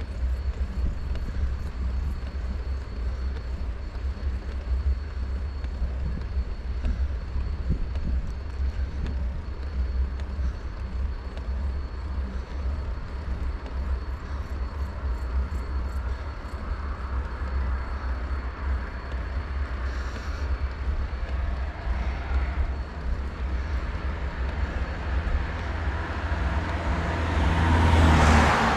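Steady low wind rumble on a cyclist's action-camera microphone. A motor vehicle is heard approaching from about halfway through, growing louder until it passes near the end, where it is loudest.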